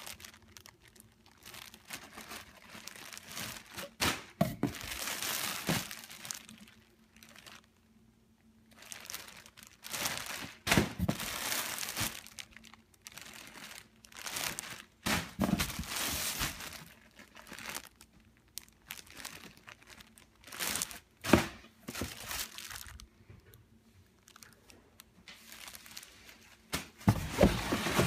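Clear plastic packaging bag crinkling and tearing as it is handled and pulled open, in irregular bursts with short pauses.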